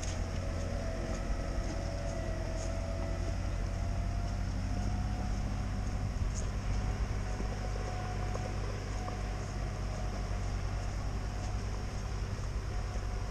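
Belarus tractor's diesel engine running steadily under load as it tows a stuck UAZ Patriot through deep mud ruts, with a slightly wavering engine pitch.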